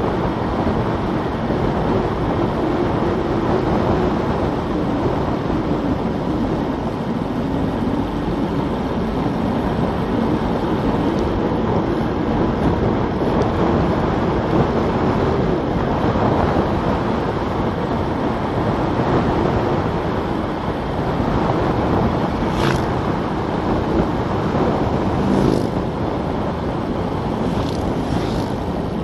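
Steady rush of wind over a Garmin VIRB action camera's microphone while coasting downhill at about 35 mph. A few faint, brief sharper sounds come through in the last several seconds.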